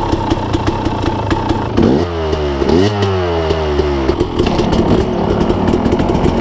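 Dirt bike engines running, among them a freshly rebuilt KTM 300 XC-W two-stroke, with the throttle blipped up and down several times about two seconds in before settling back to idle.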